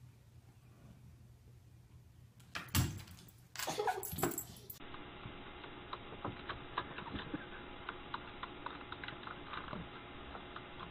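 A couple of thumps and a short animal cry, then, for the second half, a computer keyboard's keys clicking irregularly over a steady low hum.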